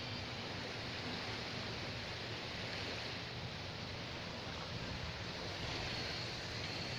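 Gentle surf washing onto a sandy beach: a steady, even rush without distinct separate wave breaks.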